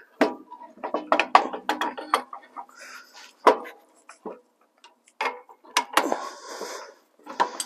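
Irregular metallic clicks and knocks of an air-brake chamber's pushrod clevis and clevis pin being worked into the slack adjuster arm by hand, in a few short clusters with gaps between.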